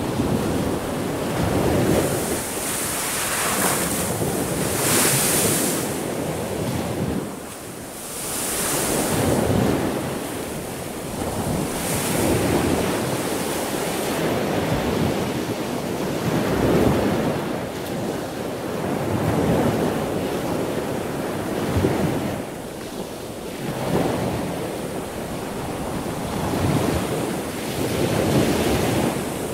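Heavy storm surf breaking and washing up the beach in repeated surges, with wind gusting against the microphone.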